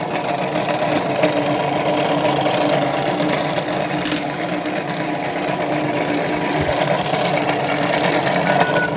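Battery-powered toy washing machine running a wash cycle: a small electric motor hums steadily while the drum turns, with a continuous rattle from its contents. A short electronic beep comes near the end as the cycle finishes.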